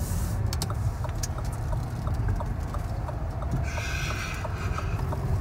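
Lada Vesta's turn-signal indicator ticking about three times a second inside the cabin, over the steady rumble of the car driving; a short hiss rises and fades about four seconds in.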